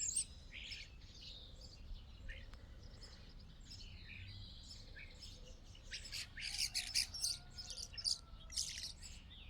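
Small birds chirping and calling in quick, high notes, busiest and loudest in the second half.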